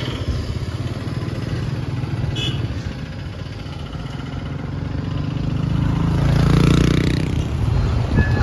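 Road traffic: a steady engine rumble as a motor vehicle draws near and passes, loudest about seven seconds in.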